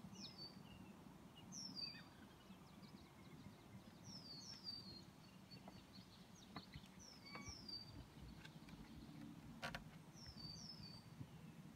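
Faint songbird calls: short high notes that slide downward, mostly in pairs, repeated every couple of seconds, with one sharp click about ten seconds in.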